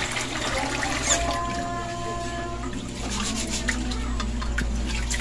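Tap water running into an aluminium pot while hands swish and rub glutinous rice in the water, washing it before cooking, with small splashes and clicks.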